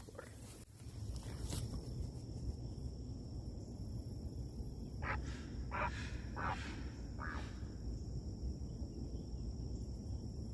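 Great blue heron giving four short, harsh calls in quick succession about halfway through, over a steady low rumble.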